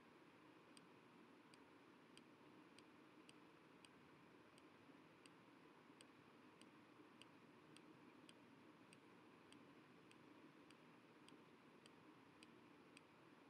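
Near silence: faint room tone with small regular ticks, about two a second.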